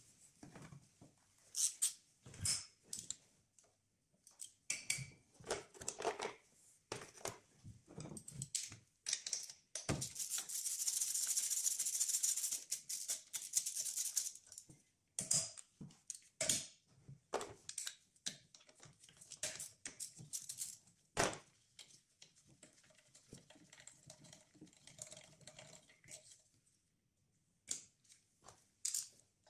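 Ratchet wrench clicking and metal tools knocking as bolts are undone in a car engine bay. A dense run of fast ratchet clicks lasts about four seconds around the middle, with scattered single clicks and knocks before and after.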